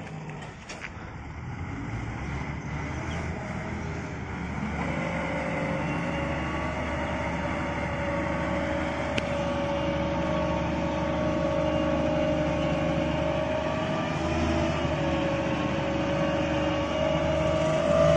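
Preet 987 combine harvester's diesel engine and machinery running with a steady whine, growing louder as the machine drives closer.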